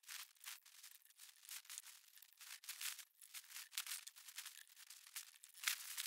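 Faint wind gusting, heard as an irregular rustling hiss that swells and dies away in quick surges, with no low rumble.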